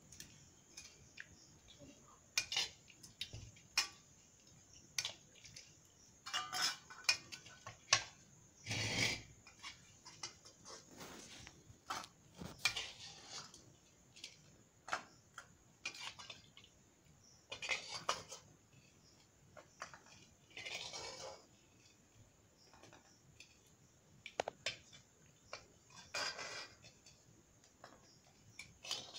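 Steel ladle scraping and clinking against a kadhai and steel bowls while chicken curry is stirred and served out, in irregular taps and short scrapes.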